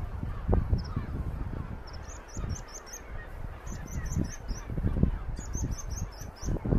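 Wind buffeting the microphone in uneven gusts, with a bird calling in three quick runs of short, high chirps.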